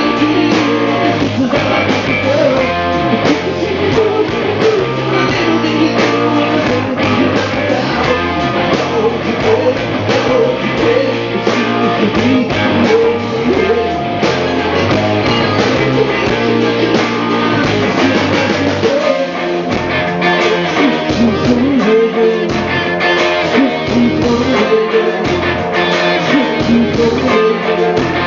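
A live rock band playing a song through the PA during a sound check, with guitar and drum kit and a voice singing. The low bass end thins out about two-thirds of the way through.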